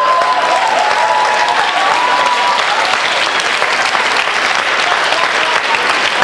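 Audience applauding steadily after a joke, with a few voices rising over the clapping in the first couple of seconds.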